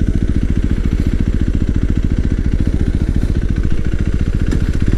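KTM RC 390's single-cylinder engine running at a steady cruise, a fast, even thrum of firing pulses.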